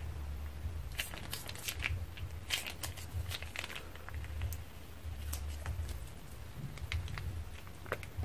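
Slime being squeezed from a plastic piping bag: the bag crinkles under the hand and the slime comes out in small sticky crackles and pops, irregular and thickest in the first half.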